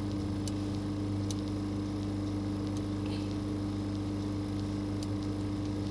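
A steady low electrical hum from the soldering and rework equipment on the bench, with a few faint small ticks.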